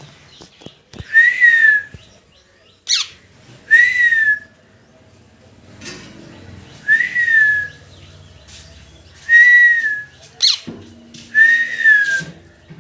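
Parrot calling loudly. Its whistled call rises and falls in pitch and comes about five times, a few seconds apart, with two quick downward-sliding shrieks between the calls.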